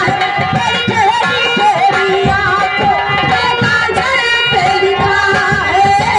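Live folk stage-show music: an ornamented melody line that bends and wavers, over a steady hand-drum beat.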